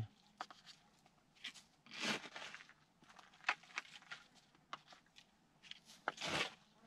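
A small plastic hand scoop digging and scraping in dry, gravelly soil: scattered crunches and scrapes, with a louder cluster about two seconds in and the loudest one near the end.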